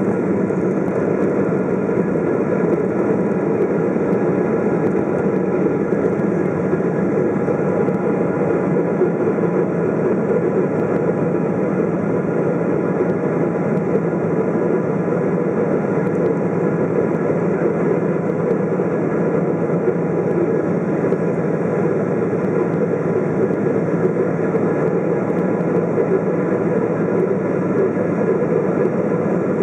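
Cabin noise of a Boeing 777-200's GE90 turbofans and airflow during the climb after takeoff, heard from a window seat beside the engine: a steady, even drone with a few faint steady tones above it.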